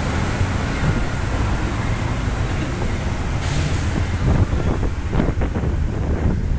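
Amtrak GE P42 diesel locomotive running past at low speed, followed by Superliner bilevel passenger cars rolling by with a steady low rumble. A brief hiss comes about halfway through, and a run of clicks and knocks from the wheels crossing track joints follows in the second half.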